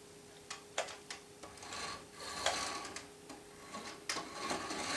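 Small motorised toy rolling across a wooden floor: a faint steady motor whine under irregular clicks and scraping.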